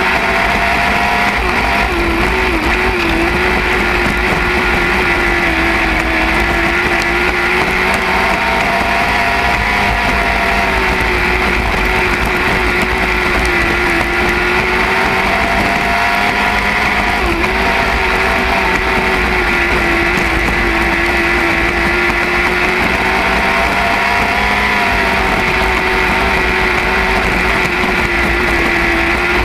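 Lightning sprint car engine running hard at racing speed, its note rising and falling in a repeating cycle every seven or eight seconds.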